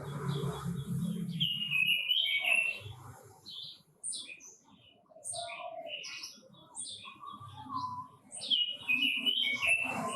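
Quế Lâm songbird singing in quick, loud phrases of high chirping, warbling notes with short pauses between them; the song is loudest twice, about two seconds in and again near the end.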